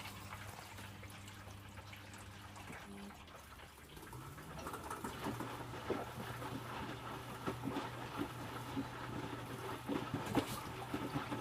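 Electrolux W455H commercial washing machine mid-wash: a low hum, then about four seconds in the drum motor winds up with a short rising whine and the drum turns, water and laundry sloshing and splashing inside, getting louder.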